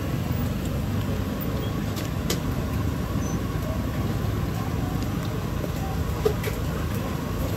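Steady low rumble of outdoor background noise, with a few faint clicks and one sharper tap about six seconds in.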